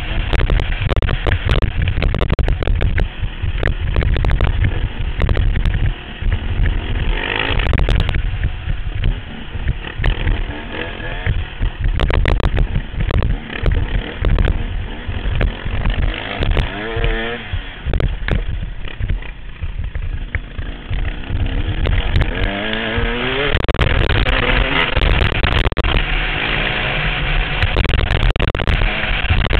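Four-stroke motocross bike engine running hard under the rider's helmet camera, revving up and down through the gears, with clear rising rev sweeps about halfway through and again a few seconds later. Many short knocks and crackles come through over the engine.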